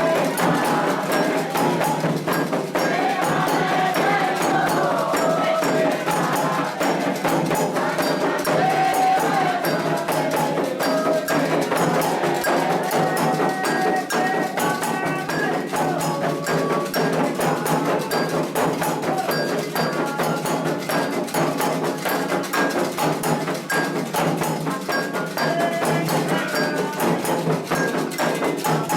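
Candomblé toque for Iansã: atabaque hand drums and a struck metal agogô bell keep a fast, steady rhythm while voices sing the chant, the singing clearest in the first half.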